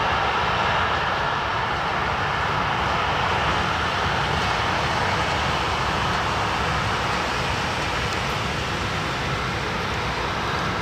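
Boeing 737-800's CFM56 turbofan engines at taxi power: a steady rushing jet noise over a low rumble.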